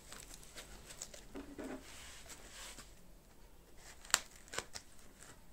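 Foam packaging sheet rustling as it is handled, then scissors cutting through the foam wrap, with one sharp snip about four seconds in and a few fainter snips after it.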